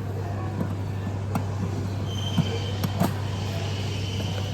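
Steady low machinery hum with a few scattered clicks and taps, and a faint high steady tone joining about halfway through.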